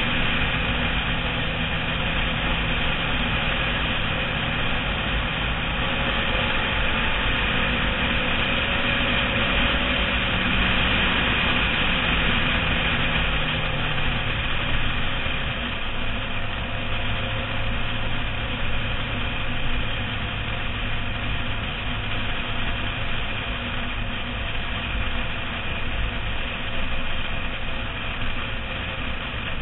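Sport motorcycle engine running at road speed under heavy wind and road noise on a bike-mounted camera. The engine note falls about halfway through and settles lower.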